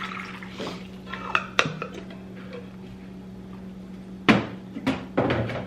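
Water from a plastic filter pitcher trickles to a stop in a metal tumbler, followed by a few light plastic clicks and knocks. Near the end come louder knocks and clatter as the pitcher is set back into the refrigerator among other items. A steady low hum runs underneath.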